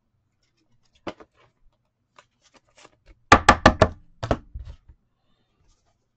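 Sharp knocks on a tabletop: a single tap about a second in, then a quick run of four loud knocks about three seconds in, followed by a few lighter taps.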